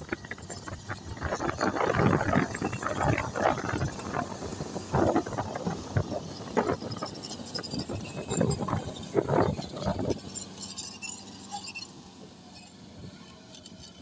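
Komatsu D155A crawler bulldozer running under load as it pushes dirt. The engine and tracks come in loud, uneven surges for about the first ten seconds, then settle to a quieter steady hum.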